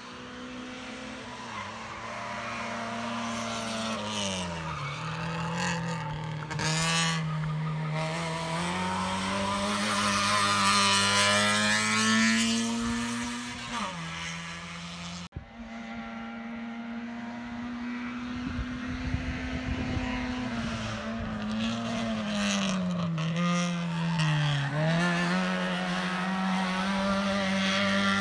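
Racing car engine at high revs, climbing a hill course. Its pitch sags and climbs back twice, as it comes off the throttle and changes gear through bends. The sound breaks off abruptly about halfway and carries on with the engine note again.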